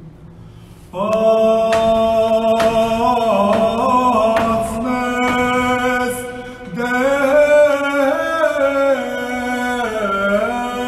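A single male voice chanting an Armenian liturgical hymn, starting about a second in, with long held notes and slow ornamented turns and a brief pause for breath partway through.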